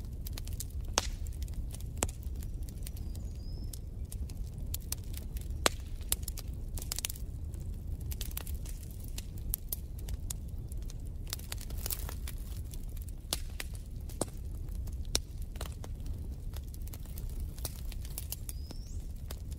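Wood fire crackling in a fireplace: irregular sharp pops and snaps over a low, steady rumble of the flames.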